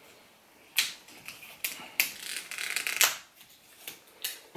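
Plastic shrink-wrap being torn and peeled off a mediabook, with several sharp crackles and a stretch of crinkling.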